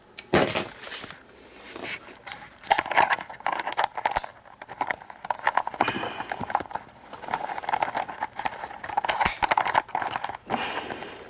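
Irregular clicking, tapping and rattling of hand-handled hard gear: a camera's tripod quick-release plate being changed and the camera clipped onto the tripod.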